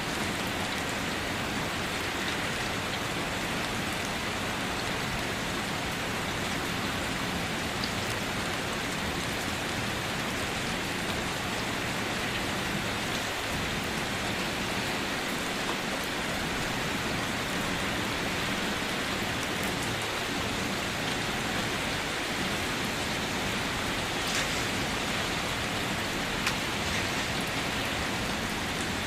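Steady rain falling on a surface, an even hiss with scattered drop patter, and a couple of faint clicks near the end.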